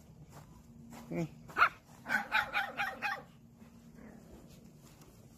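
Small dog barking in play: a short call and a sharp bark about a second and a half in, then a quick run of about six high yaps.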